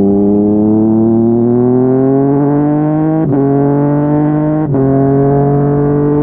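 Yamaha MT-09's inline three-cylinder engine through a Yoshimura R55 slip-on exhaust, accelerating hard with the engine pitch climbing steadily. It makes two quick upshifts, about three seconds in and again near five seconds, each a brief cut in the sound followed by a lower pitch that climbs again.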